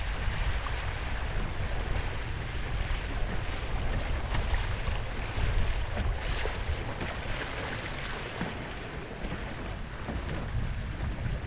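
Wind buffeting the microphone over the steady rush and splash of water along the hull of a Sunfish sailboat under way in choppy water.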